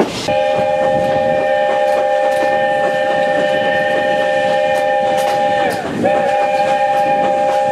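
South African Railways Class 15F steam locomotive's whistle blowing a long, chord-like blast, briefly sagging in pitch and breaking just before six seconds in, then sounding again, over the clatter of the coaches' wheels on the rails.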